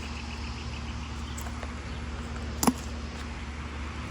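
Steady low outdoor rumble with a single sharp click about two and a half seconds in.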